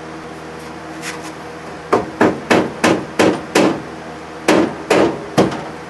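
Hammer tapping about nine times: six quick blows about a third of a second apart, a short pause, then three more, setting the board-and-2x4 clamp rig that presses the new floor pan down.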